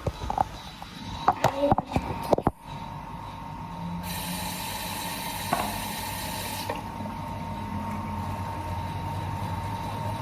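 A few knocks and clicks, then a tap runs into a sink for under three seconds and is shut off abruptly.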